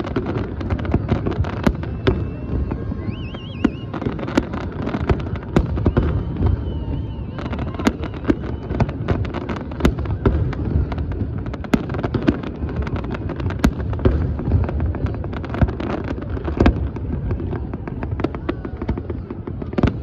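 New Year fireworks going off without a break: a rapid string of sharp bangs and crackles over a continuous low rumble of distant bursts.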